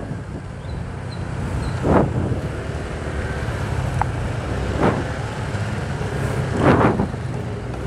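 Motorcycle engine running steadily while riding, with road and wind noise. Three short louder bursts come about two seconds apart.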